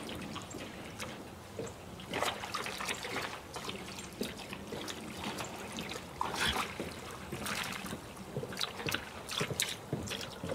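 A dog wading through shallow water, its legs and body sloshing and splashing in irregular strokes.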